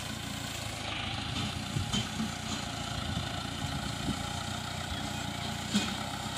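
Hindustan tractor's diesel engine running steadily as it pulls a sugar cane load along a dirt track, with a few short knocks.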